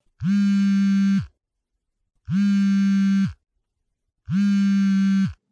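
A low buzzing tone played three times, each blast about a second long with a short upward swoop at the start and a drop at the end, about two seconds apart. The three blasts are identical, like a repeated sound-effect sample.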